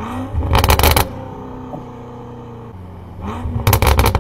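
BMW exhaust popping and crackling on the overrun: twice, a short rise in engine note is followed by a rapid burst of cracks, about three seconds apart, over a steady engine drone.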